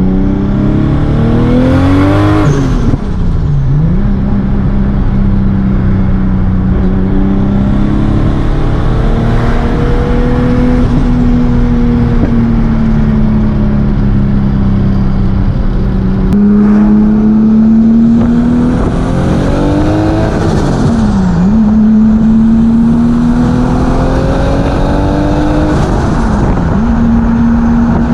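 Nissan Cefiro's swapped Toyota 2JZ-GTE inline-six under load on a mountain road, loud and continuous, its pitch rising and falling with the throttle through the bends. The revs dip sharply and climb back three times: early on, about two-thirds of the way through and near the end.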